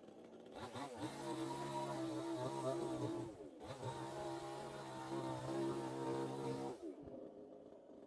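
Chainsaw revved up from idle, running at high speed for about six seconds with a brief dip in the middle, then dropping back to idle.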